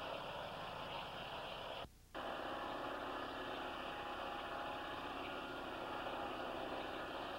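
Mobile Dimension sawmill running and sawing through a log: a steady engine and blade noise, heavy with the hiss of an old VHS recording. It drops out for a moment about two seconds in.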